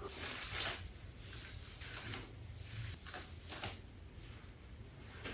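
Hairbrush stroking through natural hair: a series of short brushing swishes, roughly one a second, growing fainter after the first few seconds.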